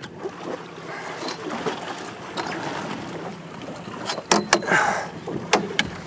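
Choppy water slapping and lapping against the hull of a small fishing boat, a steady wash with no engine note. A cluster of sharp slaps or knocks comes a little past four seconds in, with a couple more near five and a half seconds.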